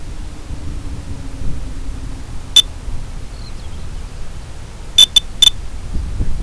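Short electronic beeps: a single beep about two and a half seconds in, then three quick beeps near the end, over a low wind rumble on the microphone.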